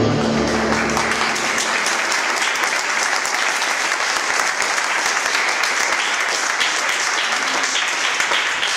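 Audience applauding at the end of a belly-dance performance, the dance music fading out about a second in.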